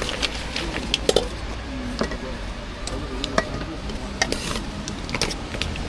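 Scattered clicks and clatter of utensils and containers as braised food is handled and packed at a food stall.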